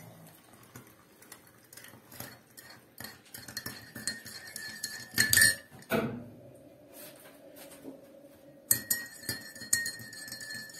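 Metal teaspoon stirring freshly brewed coffee in a cup, clinking against the sides over and over, with one louder clink about five seconds in and a ringing tone that hangs on between strikes.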